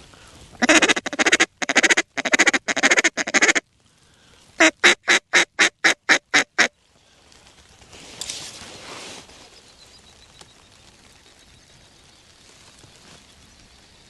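Mallard duck call blown up close: about three seconds of fast quacking notes, a short pause, then a string of about eight evenly spaced quacks. After that only a faint background remains.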